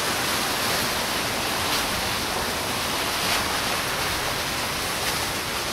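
A steady, even hiss with nothing pitched in it, broken by a few faint ticks.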